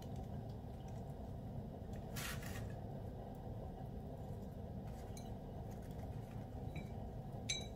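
Quiet room tone with a steady low hum, a brief soft rustle about two seconds in and a few faint ticks, as a soft bun is pressed shut by hand around a fried potato filling.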